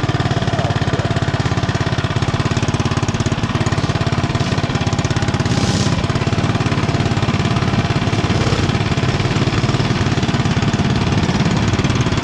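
Mini bike's small single-cylinder engine idling steadily, a fast even putter.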